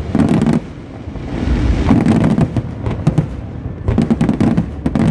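Fireworks display going off: booming shell bursts and rapid crackling, loud at the start, easing briefly about a second in, then swelling again, with a dense run of cracks near the end.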